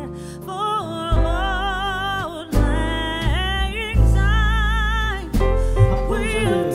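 Background music: a song with a solo singing voice holding long wavering notes over a bass line.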